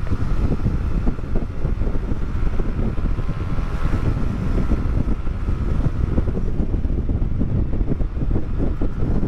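Cagiva Mito two-stroke motorcycle ridden at speed, its engine heard under heavy wind buffeting on the rider's microphone, with a faint steady whine over the first several seconds.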